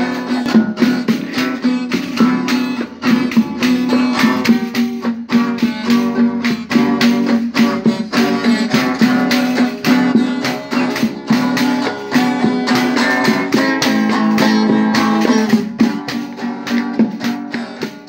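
Nylon-string acoustic guitar strummed with a tambourine's jingles, over a loud, held low droning tone that steps between two pitches.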